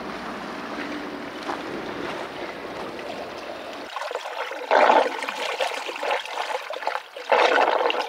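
Snowmelt water running and trickling in a steady wash, with two louder rushing bursts, one about five seconds in and one near the end.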